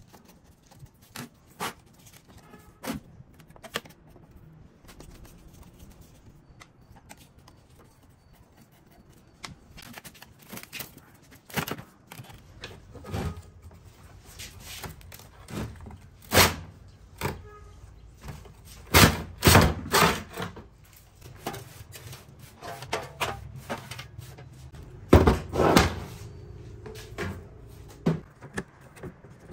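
Sharp metal clicks, knocks and clatter from a rusted steel desktop PC case and its parts being taken apart with a screwdriver. The knocks come scattered at first, with louder clusters of clatter about two-thirds of the way through and again near the end.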